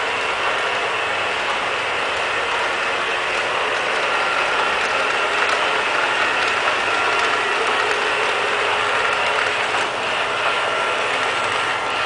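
Liectroux K6 robot vacuum cleaner running steadily on a tile floor, its motors and spinning side brushes making a continuous mechanical whir with a few light clicks.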